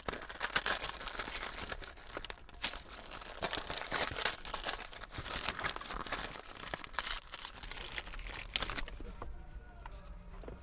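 Crinkling and tearing as a box of chocolates is unwrapped by hand: a dense run of crackles and rustles that thins out near the end.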